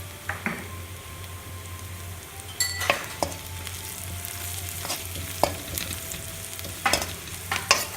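Sliced onion sautéing in hot oil in a pan with curry leaves and turmeric, sizzling steadily. A spoon scrapes and clinks against the pan now and then as it is stirred.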